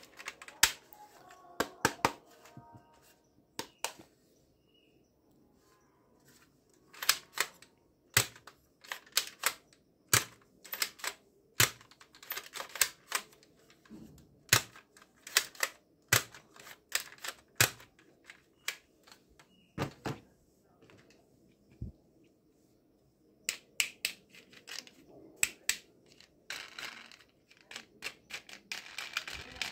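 Hard plastic toy blaster being handled and worked: many irregular sharp plastic clicks and clacks, with a quieter gap partway through and a rustle near the end.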